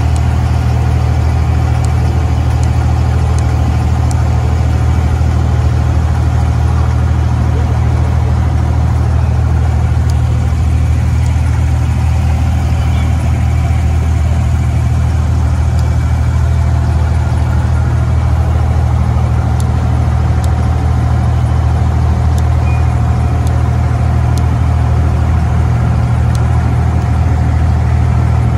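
Abra water taxi's diesel engine running steadily, a loud, even low drone heard from aboard the boat.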